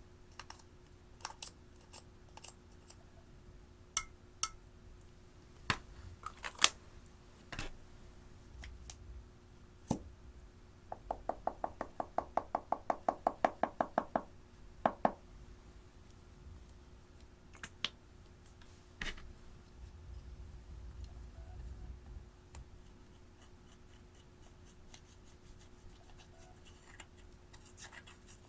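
Slime and makeup being handled at close range: scattered sharp clicks and taps, with a fast run of about eight clicks a second for roughly three seconds midway, then a few single clicks.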